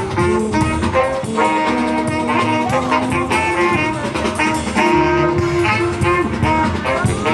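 Background music in a jazz style, led by brass instruments.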